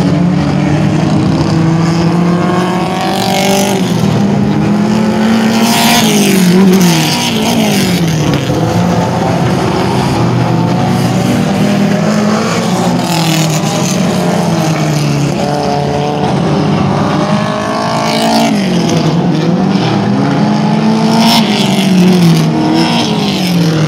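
Several dirt-track race cars running laps together, their engines revving up along the straights and dropping off into the turns, over and over. The sound is loudest as cars pass close, about six seconds in and again near the end.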